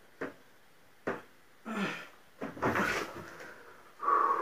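A wooden door swollen with moisture and jammed in its frame, yanked hard by its handle: a few sharp knocks, then longer scraping as it sticks against the frame.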